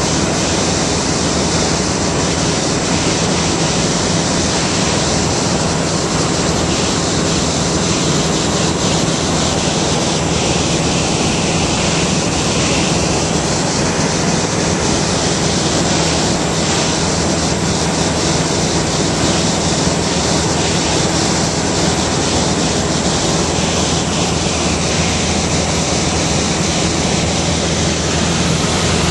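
Engine and airflow noise inside the cabin of a light high-wing aircraft in flight: a loud, steady drone with a low hum, unchanging throughout.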